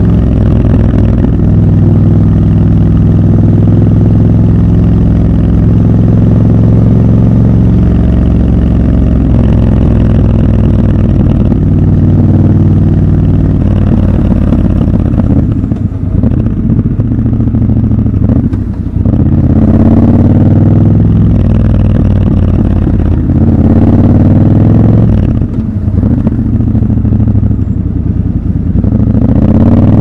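Triumph Scrambler 1200 XC's 1200 cc parallel-twin engine running under way: a steady cruising note for about the first twelve seconds, then in the second half the engine note drops and climbs again several times as the rider rolls off and opens the throttle.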